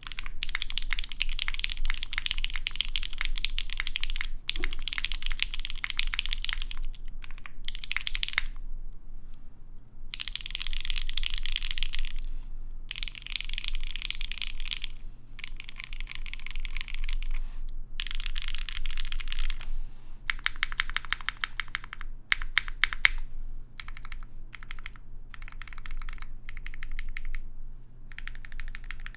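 Custom mechanical keyboard being typed on: a TGR x Singa Unikorn with lubed C3 Tangerine v2 linear switches on an aluminium half plate, under GMK keycaps. Fast runs of keystrokes alternate with short pauses, and the typing becomes sparser and more broken up in the second half.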